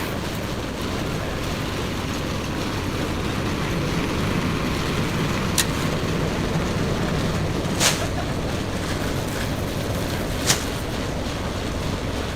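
Steady running of construction machinery with a low hum, broken by three sharp knocks about halfway through, near two thirds in and near the end.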